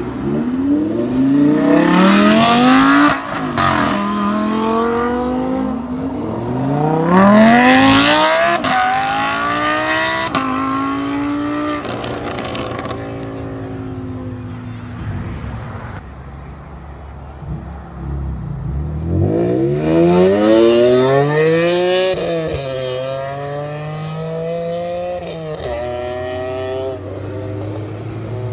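Audi R8 accelerating hard away, its engine note rising steeply in pitch through two upshifts and then fading into the distance. About two-thirds of the way through, another car pulls away hard with a rising note and quick upshifts, and a low steady engine note comes in near the end.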